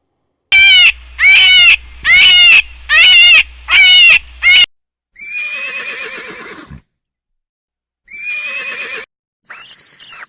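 Loud farm-animal calls: five short wavering calls in quick succession, then two longer quavering calls, and a brief call of a different kind near the end.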